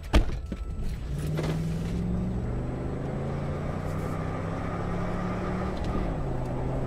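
A car engine and road noise inside the cabin as the car pulls away from a stop and speeds up, with the engine note stepping down once near the end as at an upshift. A single sharp knock comes right at the start.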